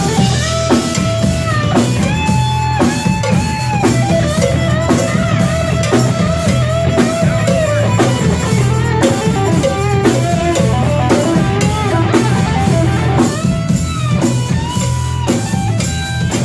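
Rock band playing an instrumental passage: an electric guitar plays held and bending lead notes over a drum kit and bass.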